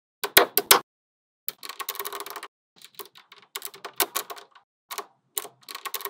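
Small magnetic balls clicking and snapping together in quick clusters of sharp clicks, separated by short silent gaps.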